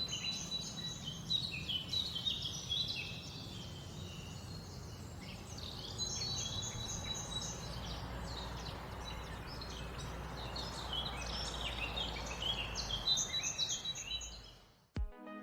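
Forest ambience: many birds chirping and singing in a dense chorus over a steady low background rumble. It fades out near the end.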